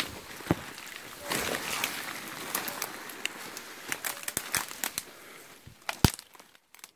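Footsteps pushing through dry undergrowth: twigs snapping and leaves rustling, with many sharp cracks and a loud snap about six seconds in.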